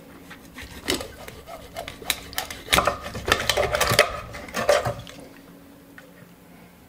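Chef's knife sawing through a lake trout's backbone behind the head on a wooden cutting board: a rapid run of crackling clicks from about a second in, busiest in the middle. It stops at about five seconds as the head comes off.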